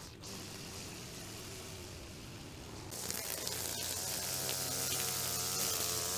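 Steady hiss, joined about three seconds in by the wavering hum of a small gas string trimmer engine idling, getting louder as the trimmer is carried up close.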